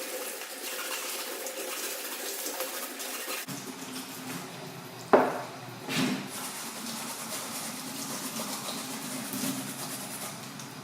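Tap water running steadily into a sink while dishwasher filters are cleaned under it, with a sharp knock about five seconds in and a smaller one a second later.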